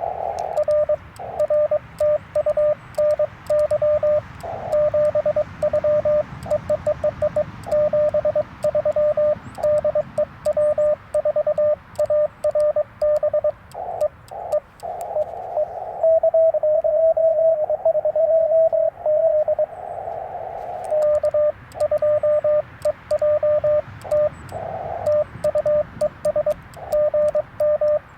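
Morse code on a Yaesu FT-891 HF transceiver: keyed beeps at a single steady pitch, with sharp clicks from the twin-paddle key alongside most of the sending. For a few seconds past the middle the clicks stop and another station's code comes in at a slightly higher pitch over band hiss.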